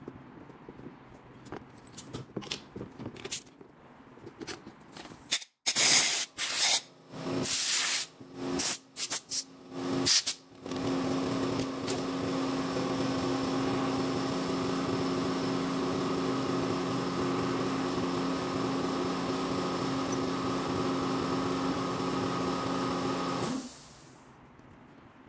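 Light clicks of small metal parts being handled, then a run of short, loud hissing blasts, then a machine motor running with a steady hum that cuts off near the end.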